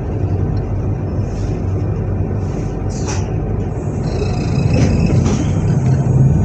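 Z 20500-series (Z2N) double-deck electric multiple unit standing at a platform, its onboard equipment giving a steady low hum. A short hiss comes about three seconds in and two sharp clicks around five seconds, and the hum grows a little louder near the end.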